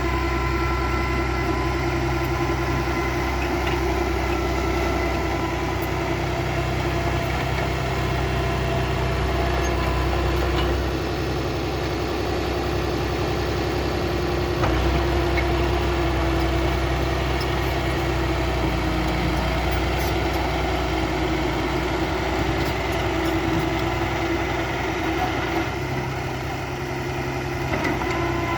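Bulldozer's diesel engine running steadily with a deep rumble. The low rumble eases about eleven seconds in, comes back stronger a few seconds later, and dips briefly near the end.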